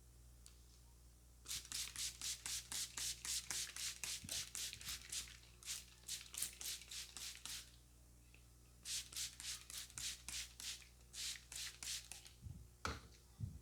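Massage hand strokes: rapid, rhythmic percussive slaps of the barber's hands on the head, about four a second, in two runs with a short pause between. A couple of duller knocks come near the end.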